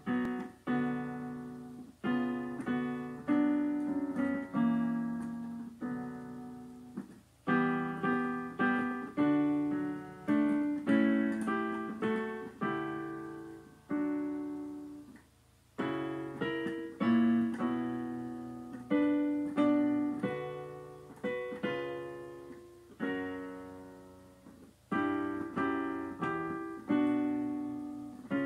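Piano playing a hymn tune in chords, each chord struck and then dying away, in phrases with short breaks between them: the introduction before the singing begins.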